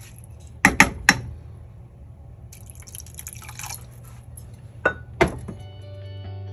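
Wooden spoon stirring grated sweet potato and lentils in water inside a stainless-steel pressure cooker. The stirring is a wet sound, with three sharp knocks on the pot about a second in and two more near the end. Background music starts just before the end.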